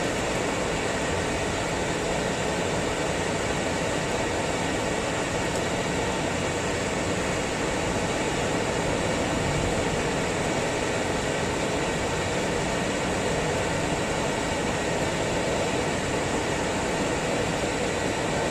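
Steady road and engine noise inside a moving car's cabin as it drives downhill, an even rushing with no changes.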